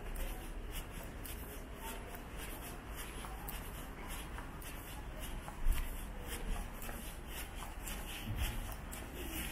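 Footsteps walking on a paved sidewalk, a soft shuffling rhythm of about two steps a second, over low street rumble, with a single dull thump a little past halfway.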